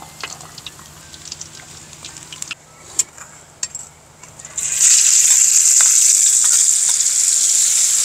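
A few light clicks, then about four and a half seconds in, chili paste drops into hot oil in a wok and it breaks into a loud, steady sizzle that keeps going as it is stirred with a ladle.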